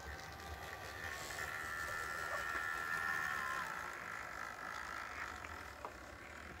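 HO-scale model diesel locomotive (Athearn Genesis MP-15AC) running on track, its motor and gears giving a steady whine that swells as it passes close and then fades, with one small click near the end. The owner calls it a little noisy and thinks it may need lubrication or breaking in.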